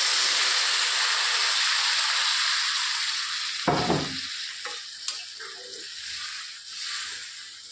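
Water poured into a hot wok of oily spiced masala, potatoes and eggs, sizzling loudly at once. The sizzle fades as the water settles into a gravy, with a short thump about four seconds in.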